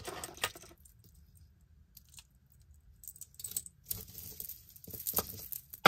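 Beaded necklace clicking and jingling as hands pick it up and spread it out: scattered small clicks of beads and wire links, with a lull about a second in and a sharper click right at the end.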